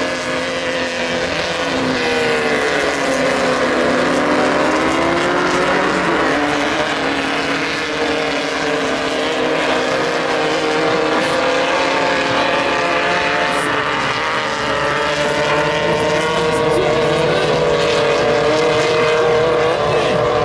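Engines of off-road race vehicles running on the dirt course, several at once, their pitch rising and falling as they accelerate and back off.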